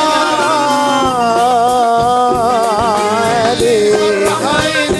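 Live Middle Eastern pop song: a male singer holds one long, wavering, ornamented note over the band, breaking off about three and a half seconds in before the band carries on.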